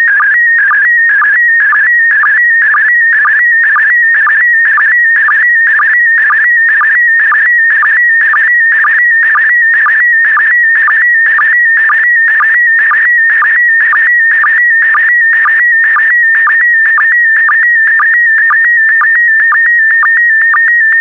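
Slow-scan television picture signal in PD120 mode: a loud warbling electronic tone around 2 kHz, pulsing evenly about twice a second as each pair of image lines is sent.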